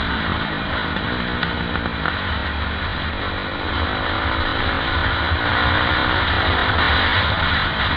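KTM 520 EXC supermoto's single-cylinder four-stroke engine running under way on the road, its revs rising and falling through the bends and getting louder about halfway through as it pulls out of a corner, with wind rushing over the microphone.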